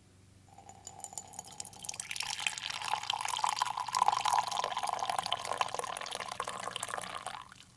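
A stream of dark brown drink poured into a ceramic mug, starting faint and splashing louder from about two seconds in, then stopping just before the end.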